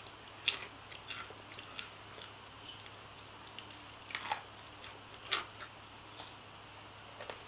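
Faint, irregular clicks and crunches over quiet room tone, with a few louder ones about half a second, four seconds and five and a half seconds in.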